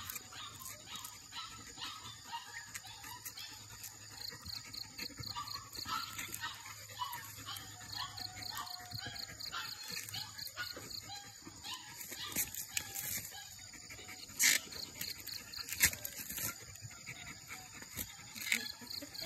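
A puppy tearing and chewing a dry coconut husk: fibres ripping and rustling in a steady run of scratchy clicks, with two sharper snaps about three-quarters of the way through.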